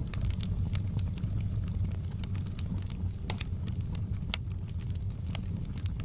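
Wood fire crackling in a fireplace: a steady low rumble of flames with frequent sharp pops and snaps, two louder pops around the middle.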